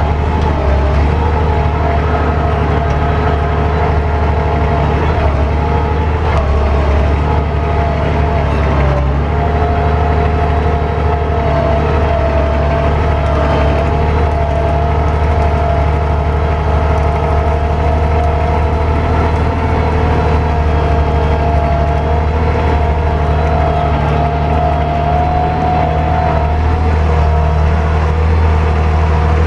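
Tractor engine running steadily under load while pulling a chisel plow, a continuous low drone with a nearly constant pitch.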